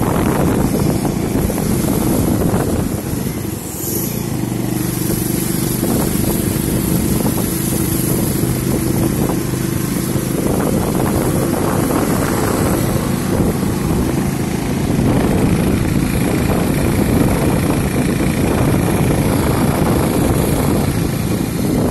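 Motorcycle engine running steadily under way, with wind and road noise rushing over the microphone. The sound dips briefly about four seconds in.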